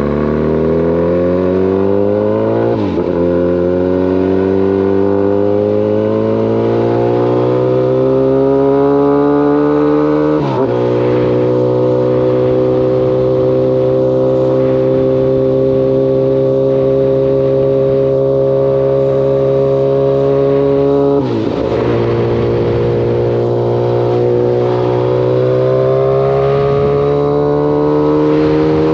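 Kawasaki ZX-14's inline-four engine pulling under way, its note climbing steadily. The pitch drops sharply three times, about 3, 10 and 21 seconds in, as with gear changes. Between about 11 and 21 seconds the note holds steady at cruising speed.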